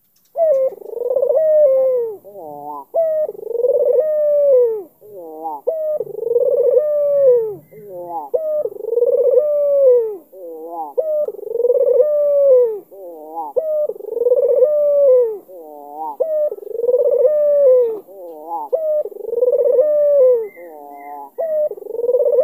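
A white Barbary (ringneck) dove cooing over and over, about ten phrases one every two seconds or so. Each phrase is a long drawn coo that rises and falls, followed by a few quick rolling notes.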